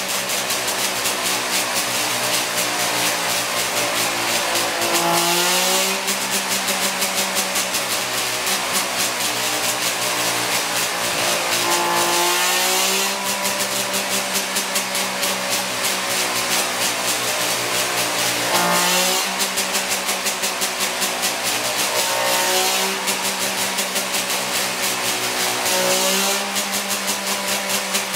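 Rebuilt 1960s DKW 1000cc three-cylinder two-stroke race engine running on a test dyno. Its speed steps up in several stages a few seconds apart, with brief dips between, and its exhaust note pulses between the steps. This is the engine's first run on the dyno after a rebuild, with carburettor jetting and ignition timing still untested.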